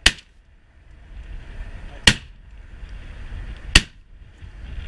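Three shotgun shots: one right at the start, a second about two seconds later, and a third under two seconds after that.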